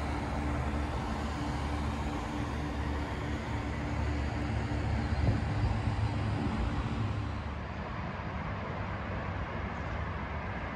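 Steady outdoor city background noise with a low machine hum underneath. About seven and a half seconds in it becomes slightly quieter and duller.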